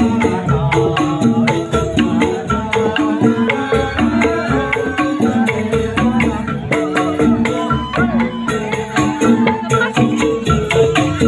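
Instrumental music: melodic notes played in short steps over a fast, steady percussion beat, a Balinese song.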